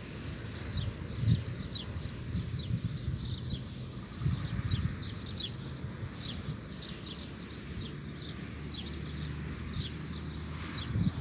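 Birds at dawn: many short, quickly falling chirps repeated rapidly and overlapping, over an irregular low thumping and rumble.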